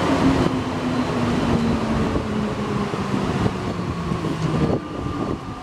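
Alstom NS-93 metro train running, its traction motors whining in a tone that falls steadily as the train slows, with the whine cutting out near the end.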